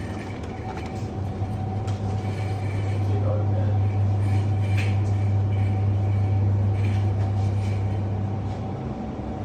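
A steady low mechanical hum with a fainter high steady tone above it, growing a little louder in the middle, the kind of drone that shop refrigeration or ventilation gives.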